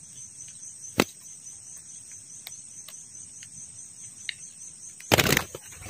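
Steady high-pitched insect chorus trilling throughout, with a single sharp click about a second in and a short, loud burst of noise about five seconds in.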